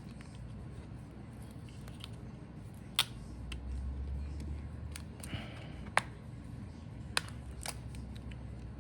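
Small sharp clicks and taps of laptop parts being handled as the battery is worked loose and lifted out, three louder clicks standing out about three, six and seven seconds in, over a low steady hum.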